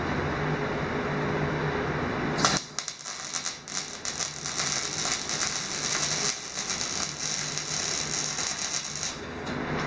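A steady hum; then, about two and a half seconds in, a welding arc strikes and crackles continuously for about six and a half seconds while a bead is run on thin-walled steel tubing, stopping shortly before the end.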